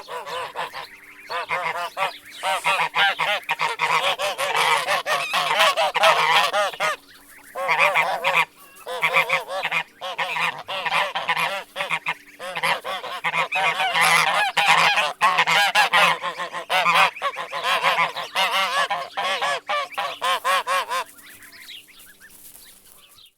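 A flock of geese honking, many loud calls overlapping almost without pause, with a few short lulls and a quieter stretch near the end.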